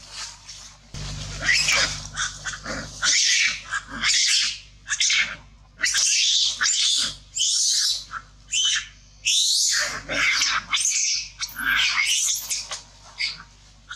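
Long-tailed macaques screaming: a rapid series of loud, shrill, high-pitched calls, one after another with short breaks.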